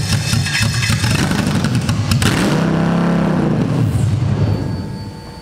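Toyota 1UZ-FE V8 on an engine stand running just after catching on its first start-up calibration on an Ecumaster EMU Black ECU. Its speed rises and falls once about halfway through, then the engine fades away near the end as it dies.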